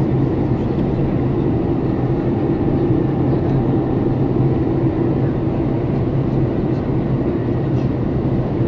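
Steady cabin noise of a Boeing 747-400 in flight, heard inside the passenger cabin: an even rush of engine and airflow noise with a steady low hum underneath.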